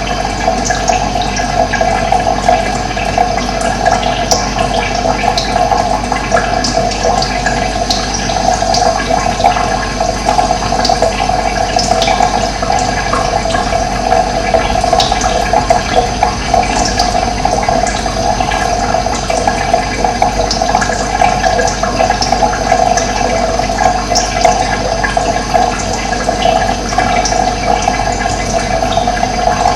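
Running water rushing steadily, with short bird chirps scattered over it throughout.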